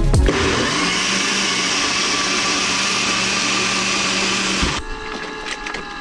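Personal bullet-style blender blending a cup of leafy greens into a smoothie. The motor runs steadily for about four and a half seconds, then stops suddenly.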